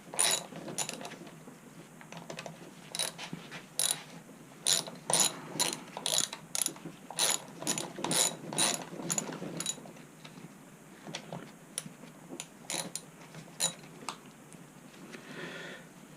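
A ratcheting driver clicking in short strokes as a bolt is backed out. The clicks come in quick runs, thinning out in the last few seconds.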